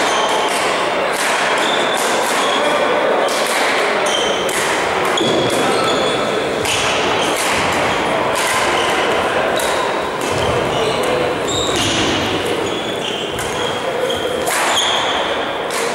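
Badminton doubles rally: rackets striking the shuttlecock again and again, with shoes squeaking on the court floor, in a large echoing sports hall.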